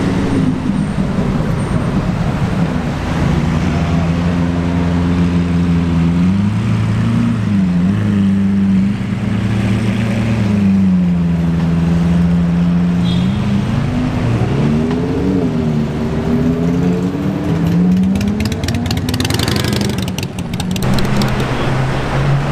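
Lamborghini supercar engines, a Huracán V10 and an Aventador V12, revving and accelerating in slow city traffic, the pitch rising and falling with each blip of the throttle. A burst of crackling comes about twenty seconds in.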